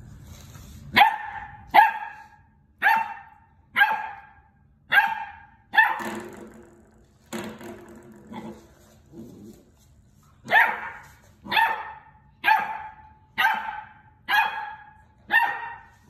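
Dogue de Bordeaux puppy barking repeatedly, a sharp bark about once a second in two runs of six, with softer, lower sounds in the pause between the runs.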